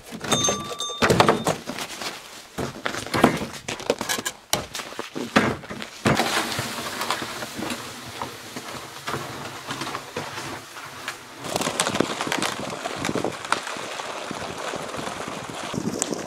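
Hard knocks and clunks of gear in a plastic sled, then the sled being dragged over snow with a steady scraping hiss and crunching footsteps.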